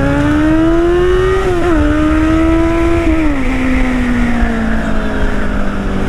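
Motorcycle engine accelerating, its note climbing with a brief dip at a gear change about one and a half seconds in. It drops again a little after three seconds and then holds a steadier, slowly falling note, with a rush of wind over the microphone.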